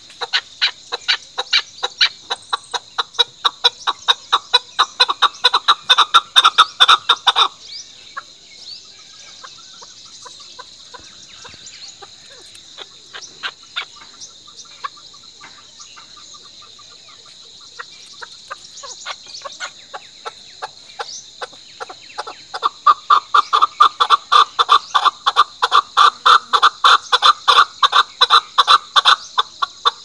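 Male chukar partridge giving its rally call: a long, rapid run of repeated 'chuk' notes that grows louder and then stops about seven seconds in. After a lull with only a few scattered notes, a second loud run of the same call starts about three quarters of the way through.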